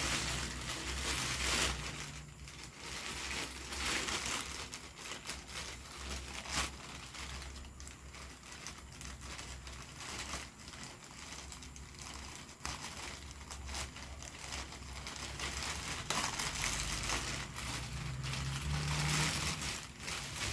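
Parcel packaging rustling and crinkling irregularly as it is opened and handled.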